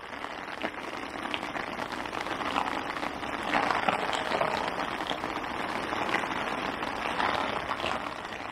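A rain shower falling steadily: a dense hiss of drops that builds over the first few seconds and eases off near the end.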